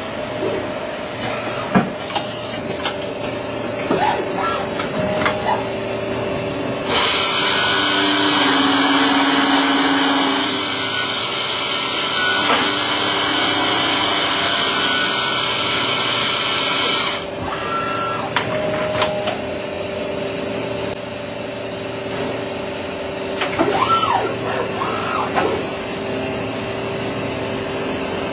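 CNC lathe turning a metal part: a steady machine hum with a loud hiss for about ten seconds in the middle, a few clicks, and short rising whines near the end.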